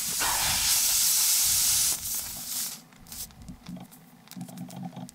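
Air hissing out of a punctured car tyre through the hole being worked with a plug-kit tool, loud and steady, cutting off abruptly about two seconds in. Faint handling and scraping sounds from the tool and tyre follow.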